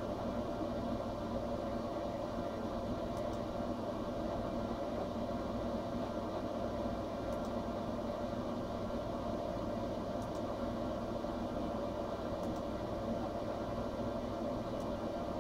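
A steady mechanical hum and hiss, unchanging throughout, with a faint high tick every few seconds.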